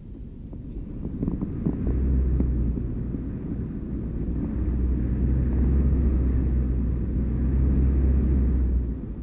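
Wind buffeting the microphone of a GoPro hung from a kite line, a deep rumble that swells about two seconds in and drops off near the end.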